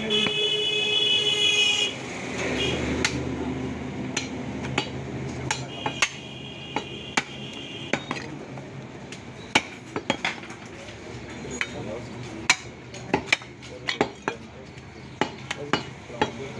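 Cleaver blade chopping beef on a wooden stump block: irregular sharp knocks, some single and some in quick pairs, over a murmur of background voices. A steady high-pitched tone is loud for the first two seconds and comes back more faintly about six seconds in.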